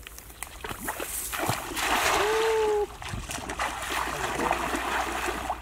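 A hand-thrown cast net splashing down onto a muddy pond about two seconds in, a loud burst of water that stops sharply, followed by smaller splashes and sloshing as the fisherman wades through the water.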